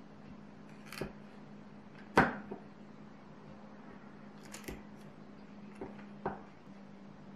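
Kitchen knife cutting through a block of butter onto a wooden cutting board: about five short knocks of the blade meeting the board, the loudest about two seconds in. A faint steady hum runs underneath.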